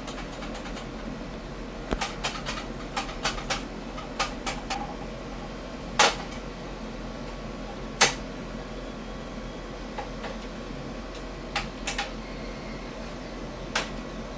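Scattered clicks and knocks of table saw parts and packaging being handled and set down, with two sharper knocks about six and eight seconds in, over a low steady hum.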